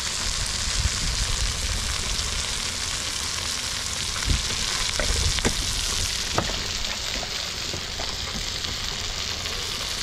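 Fish frying in hot oil in a pan: a steady sizzle with scattered pops and crackles in the middle, over a low rumble.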